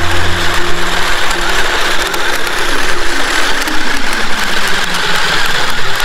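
Electric motors and gearboxes of two toy RC cars whirring and grinding as they strain against each other in a rope tug-of-war.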